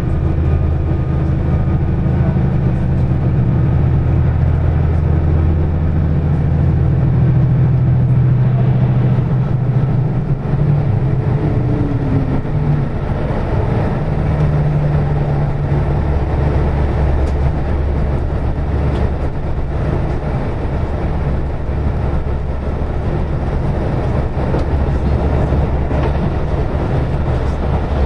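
KiHa 185 series diesel railcar under way, heard from inside the passenger car: a steady low engine drone with running noise. The engine note shifts about a third of the way in and changes again about halfway through.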